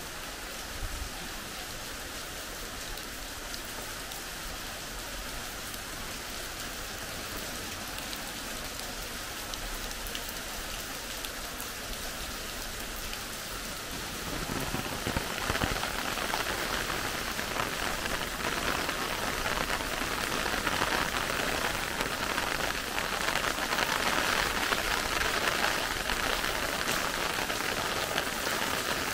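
Steady rain falling and pattering on nearby surfaces. It grows heavier and louder about halfway through.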